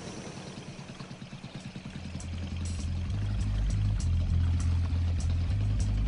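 Small boat's motor running with a fast, even low throb. About two seconds in, a loud low drone swells in and steps between deep pitches.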